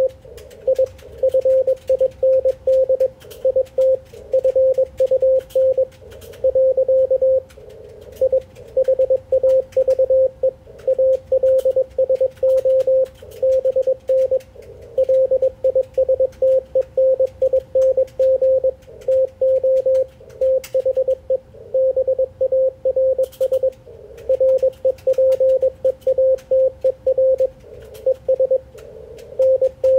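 Morse code (CW) on the 80 m band through an Icom IC-746PRO transceiver: a single steady mid-pitched tone keyed on and off in quick dots and dashes. Faint band noise and small static clicks run underneath.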